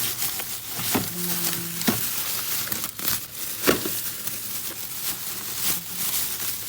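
Plastic packaging of frozen food crinkling and rustling as the packs are handled, with sharp crackles throughout and a brief low hum about a second in.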